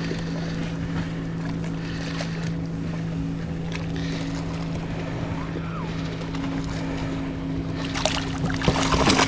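A boat motor hums steadily while the boat trolls slowly. Near the end, a splash as a released smallmouth bass kicks away at the water's surface.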